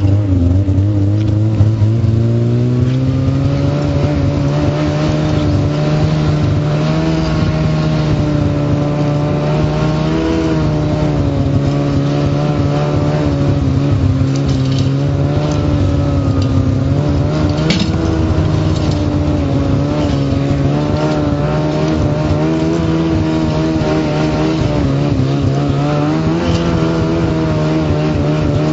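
Engine of a vehicle towing a steel-frame snow-grooming drag, its pitch rising over the first few seconds as it speeds up, then running steadily under load.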